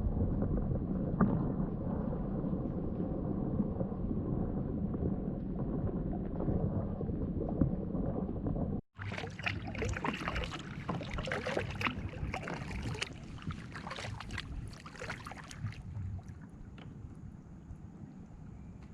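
A low, steady rumbling noise, then after an abrupt cut about nine seconds in, kayak paddling: water splashing and dripping from the paddle, with many short clicks and taps.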